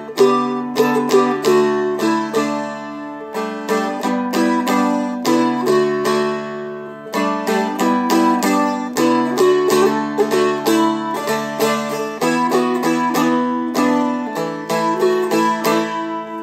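Seagull Merlin, a four-string diatonic dulcimer-style instrument, flatpicked: a quick melody of picked notes over open drone strings that ring underneath. The phrase ends on a chord that rings and fades near the end.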